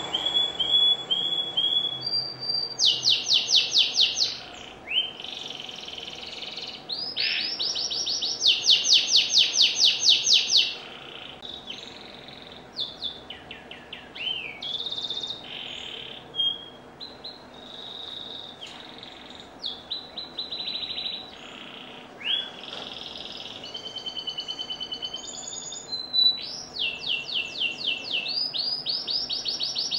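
Domestic canary in full song: a long run of fast trills and rolls, each phrase a rapid string of repeated high notes, switching to a new phrase every second or two.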